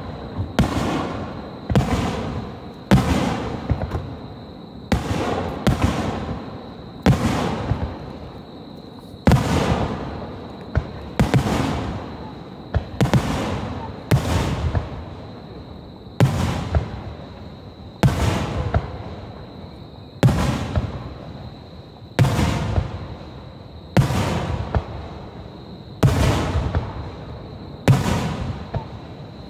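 Aerial firework shells bursting overhead in steady succession, a sharp boom about every one to two seconds, each trailing off in a rolling rumble and echo.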